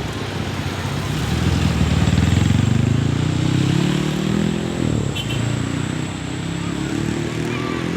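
A large road vehicle's engine accelerating, its pitch climbing for a few seconds, dropping suddenly at a gear change about five seconds in, then climbing again. No horn is sounded.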